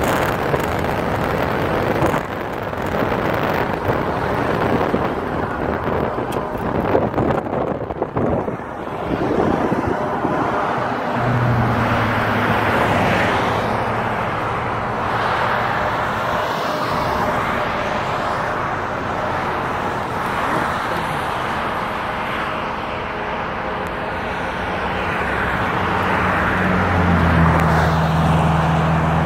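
Road and wind noise heard from inside a moving car, with a steady low engine hum that comes in about eleven seconds in and again near the end.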